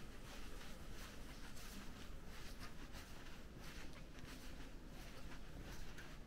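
Faint indoor ambience: a low steady hum with soft, irregular rustling and light ticks.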